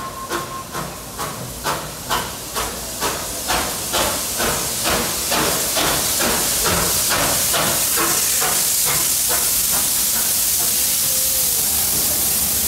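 Steam locomotive 3801, a streamlined NSW C38 class 4-6-2, running slowly into the platform: a regular beat of about two a second grows louder, then gives way about halfway through to a loud, steady hiss of steam as the engine draws alongside.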